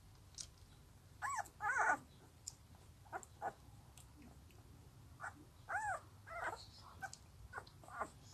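Young puppy whimpering: a series of short, high squealing cries that rise and fall in pitch, the loudest about a second and a half in and again near six seconds.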